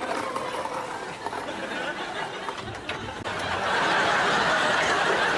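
Studio audience laughing, then breaking into applause about three seconds in.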